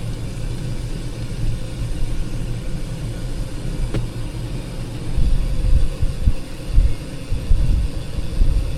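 Low, uneven rumble of wind and road noise on the microphone while cycling along a road, growing gustier in the second half.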